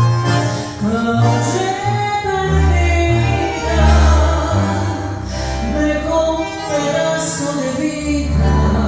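Live tango music: a woman sings over double bass, bandoneon and guitar, with the double bass holding long low notes.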